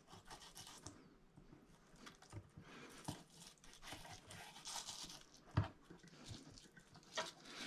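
Faint knife work: a knife slicing and scraping along a flathead fillet on a plastic cutting board, in soft irregular strokes with small knocks. One sharper knock comes about five and a half seconds in.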